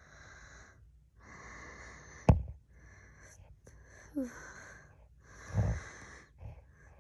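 A person's heavy, wheezy breaths, in and out about every second and a half, with a sharp knock about two seconds in, a duller thump later, and a brief squeaky vocal noise in between.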